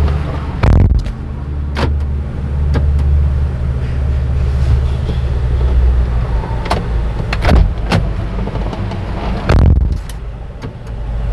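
About six sharp clicks and clunks from a 2012 Toyota Highlander's controls, spaced unevenly a second or several seconds apart, over a steady low hum.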